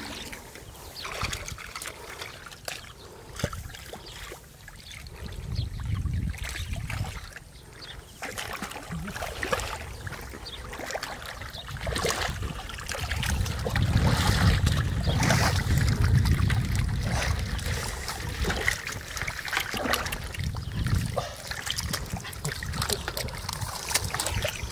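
Shallow muddy water splashing and sloshing as a plastic basket is scooped through it and a person wades, with trickling and dripping between scoops. The splashing is loudest and deepest about halfway through.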